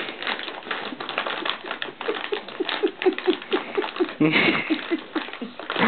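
Pomeranian chewing and crunching a treat from a hand: quick clicking bites, falling into a regular run of about three or four a second in the second half.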